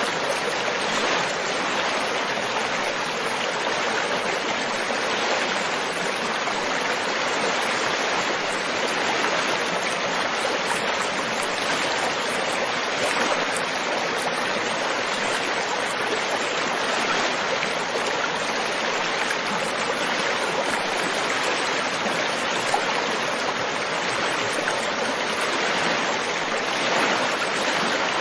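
Flowing stream water with a steady, even rush that never changes.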